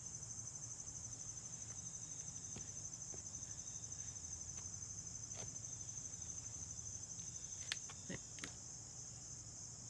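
Crickets chirping in a steady high trill, with a low hum underneath and a few faint knocks near the end.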